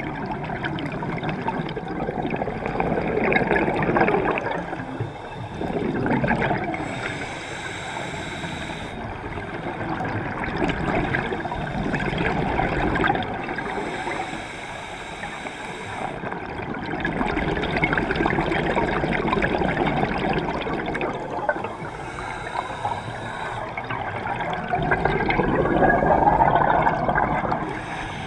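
Scuba diver breathing through a regulator underwater: exhaled bubbles gurgling and bubbling up in slow swells every several seconds.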